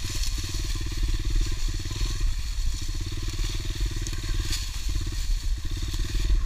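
Honda CRF110 pit bike's small single-cylinder four-stroke engine running at low speed, the throttle opening and easing off several times, with a steady hiss above it.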